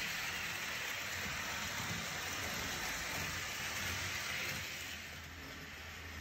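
Electric model train running on a shelf track, a steady rolling noise of its wheels on the rails. It gets quieter from about four and a half seconds in.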